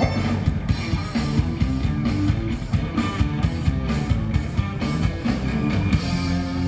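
Instrumental passage of a rock song: electric guitar and bass over a steady drum beat, with no singing.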